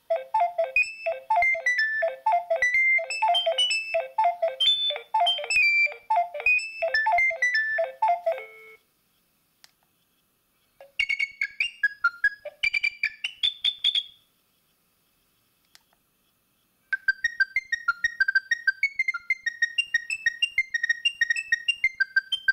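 Nokia 7250i ringtones played on the phone's speaker: three different short electronic melodies, one after another, with pauses of about two seconds between them. The first has a repeating low note under a higher tune, and the last is a quick run of high notes.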